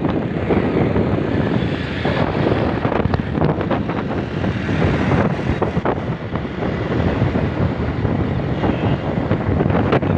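Wind buffeting the microphone of a moving vehicle, over a steady rumble of engine and road noise.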